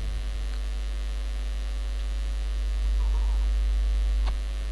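Steady electrical mains hum with a buzz of evenly spaced overtones. It swells louder for about a second and a half near the end, then drops back with a click.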